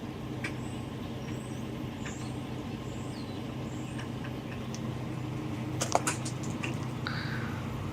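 Circuit breaker being switched: a few sharp clicks about six seconds in, over a steady low hum, followed by a brief high beep.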